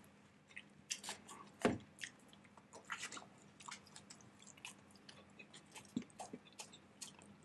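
Close-miked mouth sounds of a person chewing a bite of soft wheat roll: faint, irregular clicks and smacks, one louder about one and a half seconds in.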